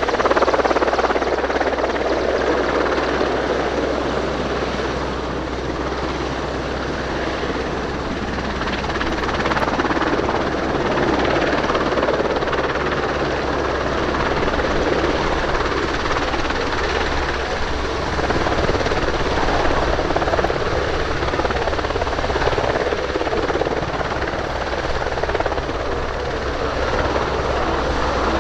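Royal Navy Merlin Mk2 (AgustaWestland AW101) three-engined helicopter hovering low: steady rotor and turbine noise that swells and eases slowly in loudness as the helicopter shifts position.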